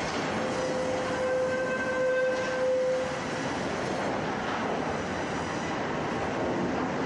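Twin band-saw sawmill unit running, with a steady, noisy mechanical rumble. A high, steady squeal sounds for about three seconds near the start, then stops.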